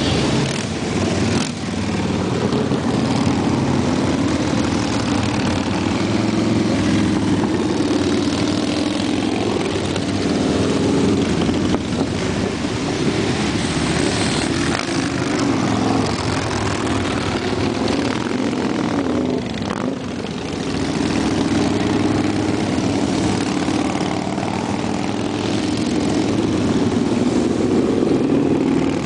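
A column of motorcycles, mostly cruiser and touring bikes, riding past one after another, their engines running in a continuous overlapping drone that dips briefly about two-thirds of the way through.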